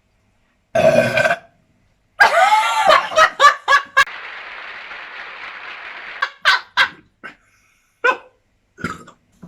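People burping after drinking Sprite: one loud burp about a second in, then a longer burp broken into several quick pulses, followed by more short bursts.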